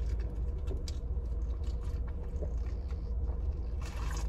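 A man drinking lemonade from a plastic cup of ice, with faint clicks of ice against the cup and a brief rustle near the end, over a steady low rumble.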